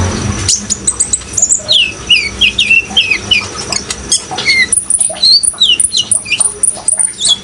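Olive-backed sunbird (kolibri ninja) singing a rapid run of short, high, down-slurred chirps and thin very high notes, with running water behind it.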